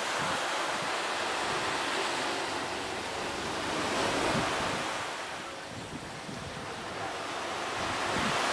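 Wind buffeting the microphone over a steady wash of surf, swelling about four seconds in, easing off around six seconds and building again near the end.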